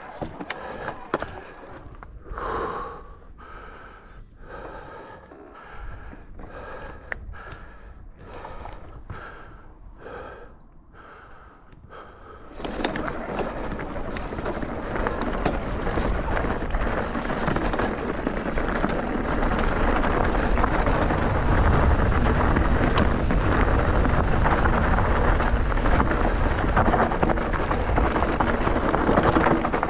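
Mountain e-bike riding on a trail: for the first dozen seconds short, regular pulses come about once a second. Then, about twelve seconds in, a loud steady rush of wind on the microphone and tyres rolling over the ground sets in and keeps growing as the bike picks up speed.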